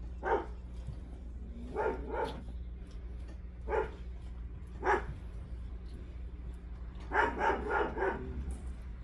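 Young puppies barking in short, sharp yaps while playing: single yaps every second or two, then a quick run of about five near the end.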